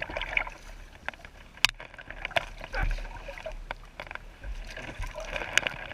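Kayak being paddled through shallow creek water, with water sounds and scattered sharp knocks, the loudest about a second and a half in.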